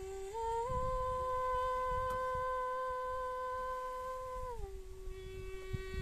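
A woman's voice singing wordless held notes: the pitch steps up twice in the first second, holds steady for about four seconds, then drops to a lower note that is held to the end. Wind rumbles on the microphone underneath.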